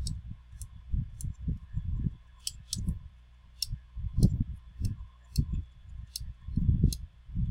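Small hand tools handled at a microsoldering bench: about a dozen sharp, irregular clicks and ticks of metal tools touching each other and the iPad logic board, with dull low knocks of handling against the bench.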